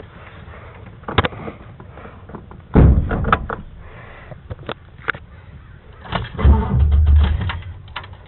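A 1974 Chevy truck's engine is cranked on the starter in two short bursts, about a second or so each, and does not catch, with clicks in between: the truck won't start.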